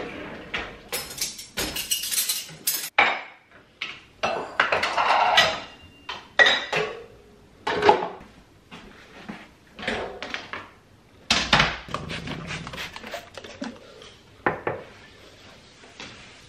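Dishes, glasses and cutlery clinking and clattering as crockery is handled at an open dishwasher and set down on a stone kitchen worktop, in a series of separate knocks and clinks.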